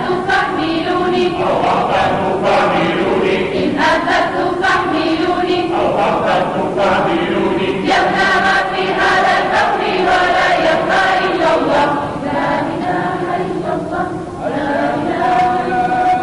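Children's choir singing, ending on one long held note.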